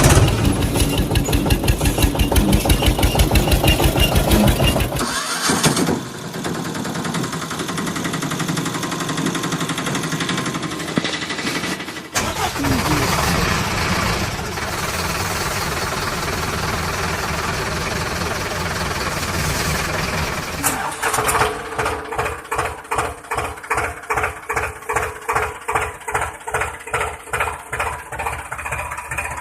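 Engine sounds, changing in character: a fast, even chugging for about the first five seconds, steadier running through the middle, then a slower, strongly rhythmic chugging of about three pulses a second in the last third.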